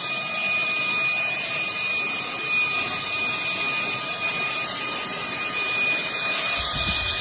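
Shark WandVac 2.0 cordless handheld vacuum running steadily: a loud airflow hiss with a thin high motor whine. A low rumble joins near the end.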